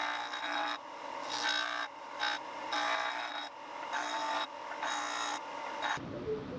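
Disc sander grinding the edge of a clear plastic side plate laminated to hickory. The workpiece is pressed to the spinning disc and eased off about six times, a rasping grind over the sander's steady whine. It stops suddenly near the end.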